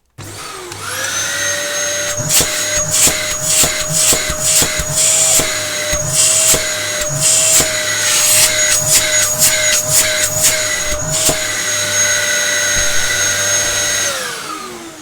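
Dyson DC07 upright vacuum cleaner switched on, its motor spinning up to a loud, steady whine, with a run of sharp clicks and rattles while it runs. About fourteen seconds in it is switched off and the whine falls as the motor winds down.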